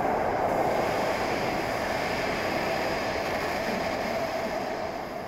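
Beijing Subway Line 11 train pulling away into the tunnel, its steady running noise fading toward the end as it recedes.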